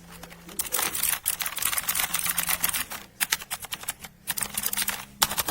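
Fast typing on a mechanical keyboard: rapid runs of key clacks, breaking off briefly twice before starting again.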